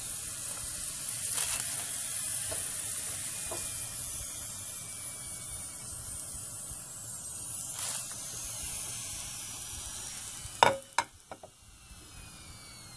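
Hot oil sizzling steadily as food fries, with scattered crackles. Near the end come a couple of sharp knocks, and after them the sizzle is fainter.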